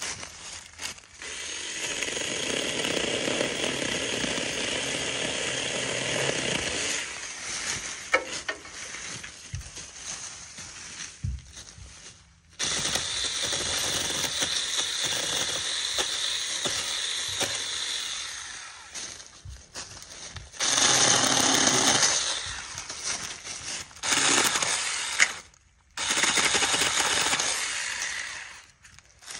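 Small battery-powered handheld mini chainsaw cutting through brush. Its electric motor runs in about five bursts of one to six seconds each, stopping and starting between cuts.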